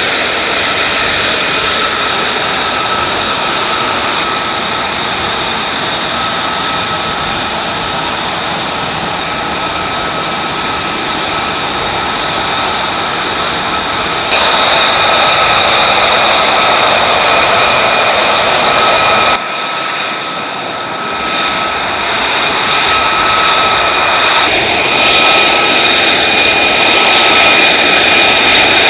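Jet aircraft engine running with a steady roar and a high whine. It gets louder suddenly about halfway, drops off abruptly a few seconds later, then builds up again near the end.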